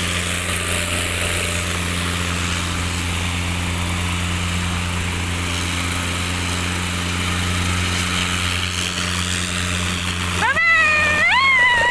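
Small helicopter running on the ground, its engine and rotor making a loud, steady drone. About ten and a half seconds in, a high-pitched voice calls out over it in a rising, wavering tone.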